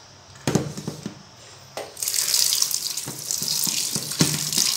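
A couple of knocks as a plastic basket of mangoes is set down in a stainless steel sink, then a kitchen tap runs water onto the mangoes as they are rinsed by hand, splashing in the steel sink.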